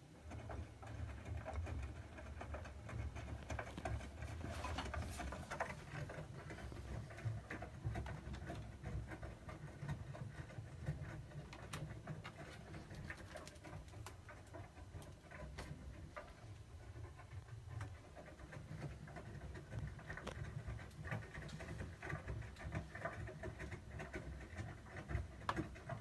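Siemens iQ300 WM14N190 front-loading washing machine tumbling wet laundry, then a Siemens condenser tumble dryer's drum turning. Throughout, a low motor hum runs under a steady patter and clatter of tumbling laundry.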